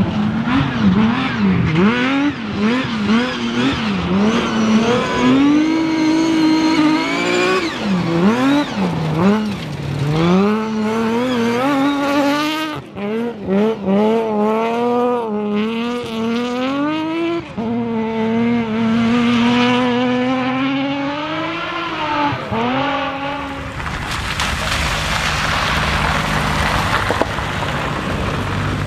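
Rally car engine at full stage pace. The revs climb and fall again and again through gear changes and lifts. For the last few seconds a broad rush of noise takes over.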